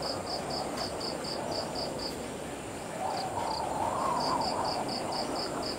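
Insect chirping in short, even high pulses, about four a second, which stop for about two seconds mid-way and then start again. Under it are a faint steady high hum and soft background noise that swells slightly in the middle.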